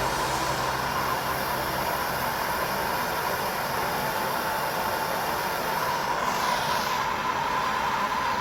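MAPP gas torch flame burning with a steady roar while it heats a copper pipe joint for soldering.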